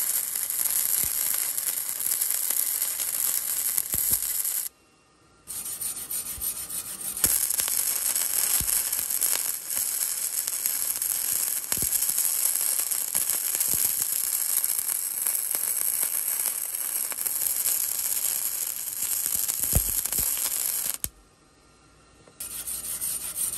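Flux-core wire-feed (MIG) welder arc crackling and sizzling steadily as a bead is laid along a 14-gauge steel plate T-joint with .035 flux-core wire. The arc cuts out for about a second roughly five seconds in, where the welder stops and restarts the bead, and again near the end.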